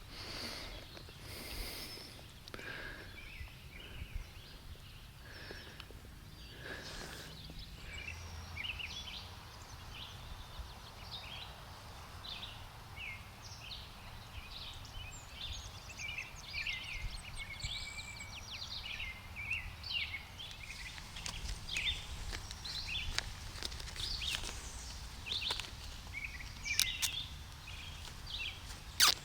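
Outdoor ambience of small birds chirping and singing in many short notes, thickening after the first several seconds, over a low steady wind rumble, with some brief rustling near the start.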